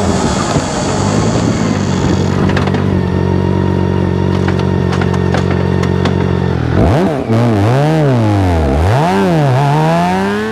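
BMW K1600GT's 1,649 cc transverse inline-six running at a steady cruise with wind rush. About seven seconds in, its revs swoop down and up several times, then climb steadily near the end.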